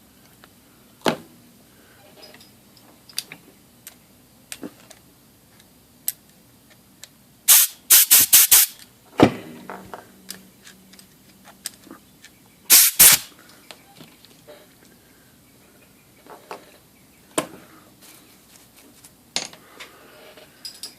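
Short hissing blasts of compressed air from an air nozzle: a quick run of about five, then two more a few seconds later, blowing solvent and old oil out of an IBM Selectric motor's bearing. Scattered light clicks and knocks of handling the motor and tools fall between them.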